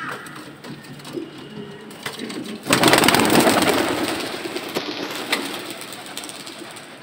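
Domestic pigeons cooing softly in the loft. About three seconds in comes a sudden loud rush of flapping wings as the flock takes off through the opened loft gate, fading over the next few seconds.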